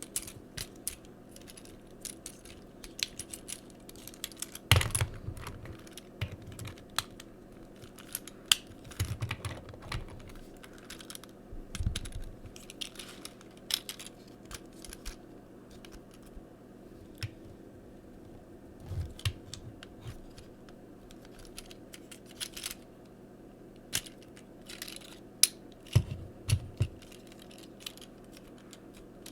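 Irregular small plastic clicks and taps from a Transformers Siege Hound action figure being handled and its arm parts reset, with a few louder knocks.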